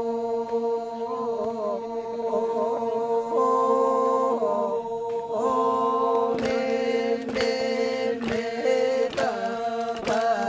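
Group of Toraja men chanting the manimbong: held droning notes with a wavering melodic line above them. From about six seconds in, sharp knocks come at irregular intervals over the chant.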